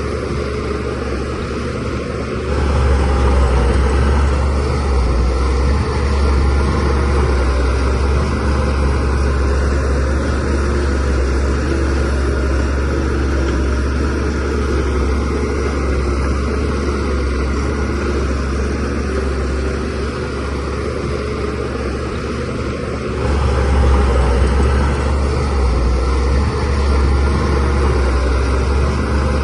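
DH17C3 bulldozer's diesel engine running steadily with a deep low rumble. It grows louder about two seconds in and again near the end.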